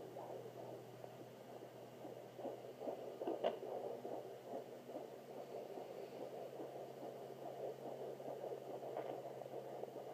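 Fetal heartbeat heard through a Sonoline B handheld fetal Doppler at 27 weeks: a fast, steady run of pulses over the Doppler's low hum. There is one brief sharper click about a third of the way in.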